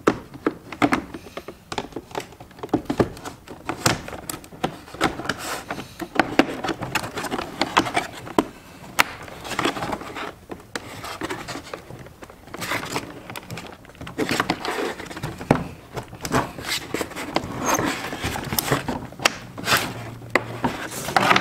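Hands working on a plastic car front bumper cover and its wiring harness: an irregular run of plastic clicks, knocks and scrapes, with rustling of the wires.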